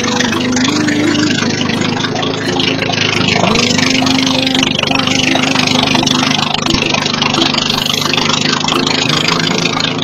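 Gas snowblower engine running steadily under load as it throws snow, with a slow song playing underneath.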